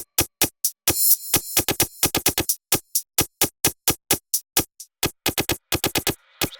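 Electronic club music: a rapid, stuttering run of sharp clicking drum-machine hits, with a short synth stab about a second in.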